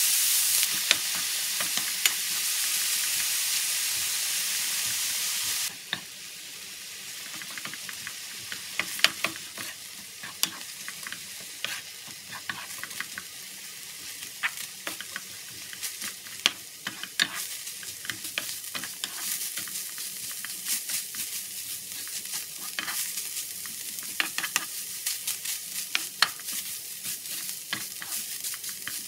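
Ground beef sizzling in a nonstick frying pan as a wooden spatula stirs and breaks it up, with frequent short scrapes and taps of the spatula on the pan. The sizzle is loud for the first several seconds, then drops suddenly to a quieter sizzle.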